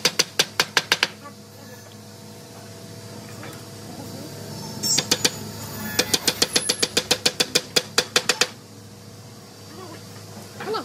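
Hammer tapping along a wooden glazing bead that holds a glass pane in a door frame: quick, even strikes, about six a second, in a short burst at the start and a longer run in the second half.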